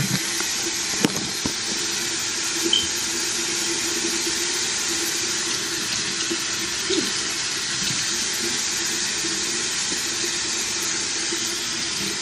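Bathroom tap running steadily into the sink.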